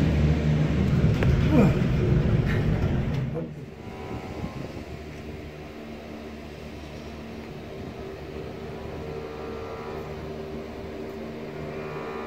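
Gondola lift cabin running. A loud rumbling rattle for the first few seconds gives way to a quieter steady hum with a few held tones.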